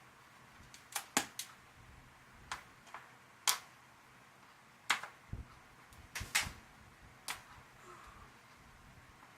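Irregular sharp clicks and light taps of a Phillips screwdriver and small screws being handled on the plastic bottom panel of a ThinkPad laptop: about a dozen in all, in small clusters, a few with a dull knock under them around the middle.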